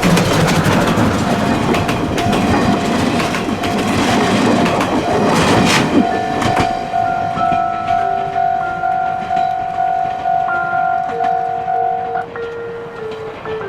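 Steam train running on the track: a loud rumble and clatter of wheels over the rails that dies away after about six seconds. Background music with a held note and a slow melody plays throughout.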